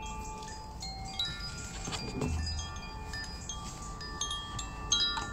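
Hand-held wooden tube chime being swung, ringing in scattered clear tones at several pitches, each note ringing on after it is struck.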